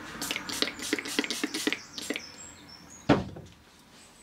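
Handling noises as a small bottle of cleaning product is dabbed onto a cloth: a quick run of small clicks and taps for about two seconds, a few faint high squeaks, then one loud thump about three seconds in.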